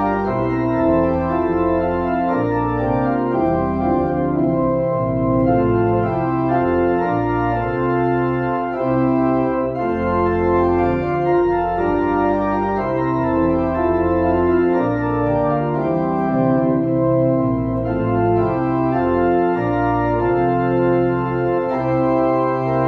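Organ playing slow sustained chords over a low bass line, the harmony changing every second or so.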